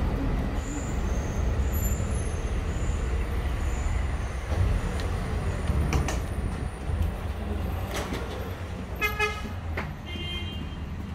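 Steady low background rumble of busy city ambience, with a couple of clicks. About nine seconds in comes a short pitched toot, then a brief higher tone.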